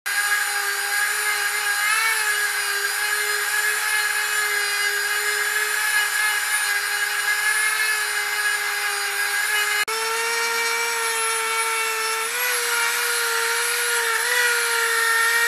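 Random orbital sander running against the back of a large red oak bowl, a steady high whine with sanding rub. It cuts out for an instant about ten seconds in and comes back slightly higher in pitch.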